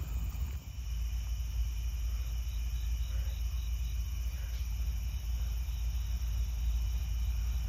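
Crickets chirping steadily over a low, steady rumble from a CSX ES44AH locomotive's GE GEVO V12 diesel engine running light.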